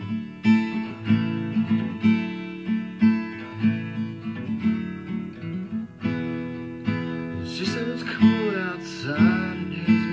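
Acoustic guitar played with the fingers instead of a pick, strumming a repeating chord riff.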